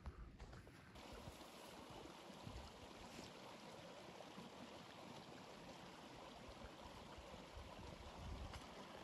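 Near silence: faint, steady outdoor ambience, a soft even rush, with a brief low rumble near the end.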